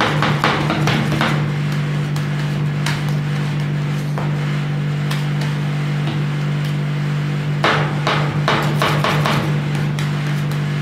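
Metal spatula chopping and scraping an ice cream mixture on a steel cold plate: rapid clusters of taps at the start and again about eight seconds in, with quieter scraping between. A steady machine hum runs underneath.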